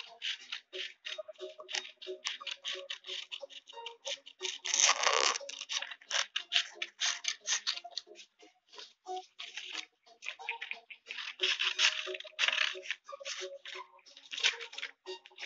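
Pencil scratching on paper in many short, quick strokes, with a louder stretch of scratching and paper handling about five seconds in. Near the end, scissors cut through paper.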